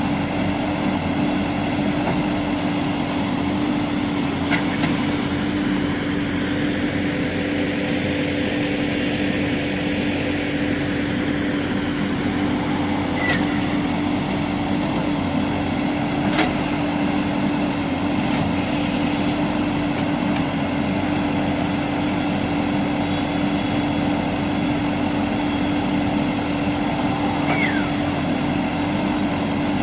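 Diesel engine of a JCB 3DX Plus backhoe loader running steadily, with a few short clicks now and then.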